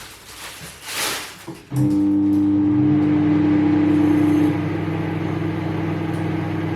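Privilege microwave oven switched on about two seconds in after some brief handling sounds, then running with a steady electrical hum, becoming a little quieter a few seconds later.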